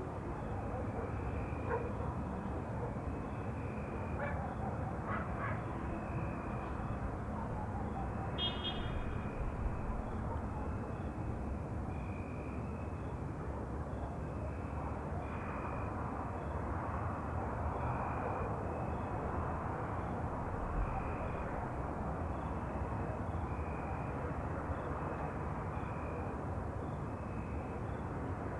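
Night ambience: a steady low hiss and rumble with a short, high chirp repeating about once a second, and a brief higher call about eight seconds in.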